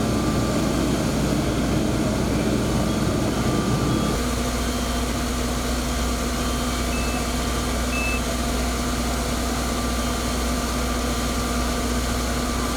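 Fire truck's diesel engine idling steadily. A heavier low rumble eases off about four seconds in.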